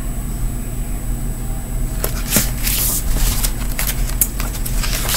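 Steady low electrical hum, with paper rustling and a few sharp clicks starting about two seconds in as a picture book is handled.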